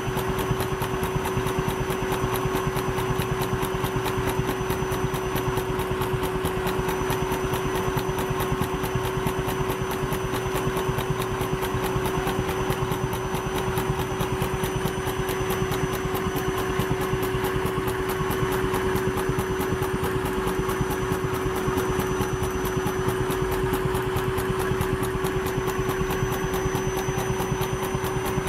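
Vacuum cleaner running with a steady whine, powering a wooden toy piston engine by suction; the wooden engine clatters with a rapid, even ticking.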